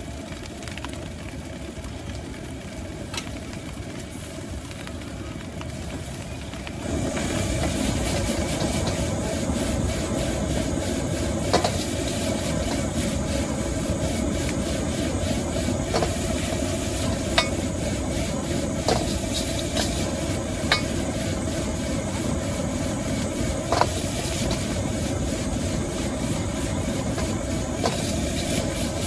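Street-stall wok stir-frying: a steady burner roar, then about seven seconds in a sudden loud sizzle as the hot wok starts frying, with the metal spatula clanking against the wok now and then.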